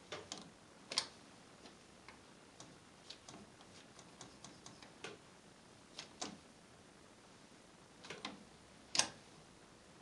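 Washing machine's program selector knob being turned and its control-panel buttons pressed: a scatter of short sharp clicks at uneven intervals, the loudest about a second in and near the end.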